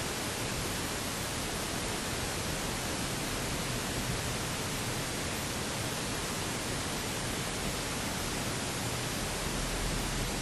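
Steady, even cabin noise of a Cessna 172 sitting with its engine idling and propeller turning, a constant hiss-like wash with no change in pitch or level.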